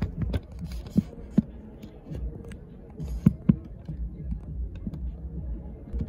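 Low steady hum of a car idling, heard from inside the cabin, with two pairs of dull thumps, about a second in and again past three seconds.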